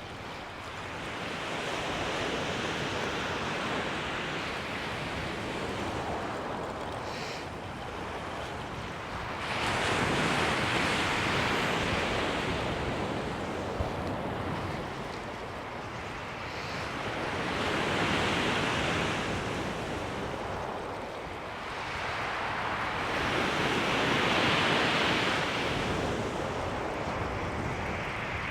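Surf breaking and drawing back over a shingle beach, rising and falling in slow surges about every six to seven seconds.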